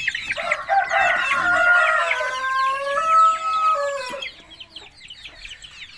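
A rooster crowing one long crow of about four seconds that falls in pitch at its end, over hens clucking.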